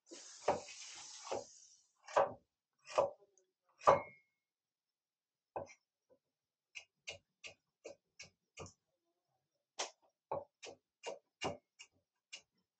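Broad-bladed kitchen knife chopping on a wooden cutting board. Five heavy strokes come about a second apart, then two runs of lighter, quicker strokes, about four a second. A short hiss lasts through the first two seconds.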